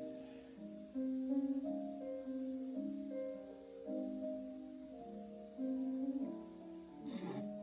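Gentle solo piano music: a slow melody over soft chords. A short breathy noise comes near the end.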